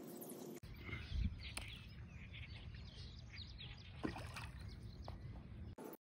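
Wind rumbling on the microphone, with birds chirping faintly in the background and a few light taps.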